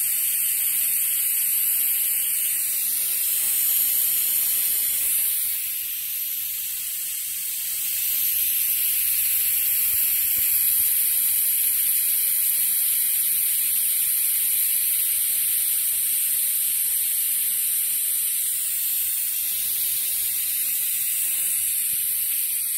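Compressed air rushing through a venturi-type coolant vacuum refill tool, a steady high-pitched hiss, briefly a little softer about six seconds in. The tool is pulling a vacuum on the car's cooling system before it is refilled with coolant.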